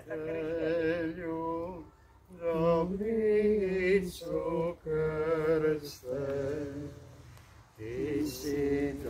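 A slow hymn sung in phrases of long held notes with a slight waver, pausing briefly twice.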